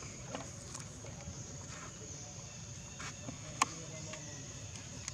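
Steady high-pitched insect buzz in forest, with a few soft clicks and one sharp click about three and a half seconds in.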